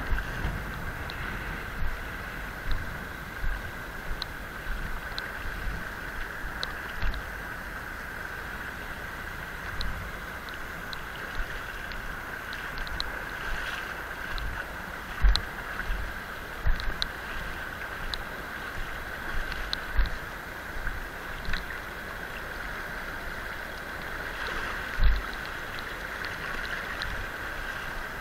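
River water rushing steadily, with scattered low thumps on the microphone, the loudest about 15 and 25 seconds in.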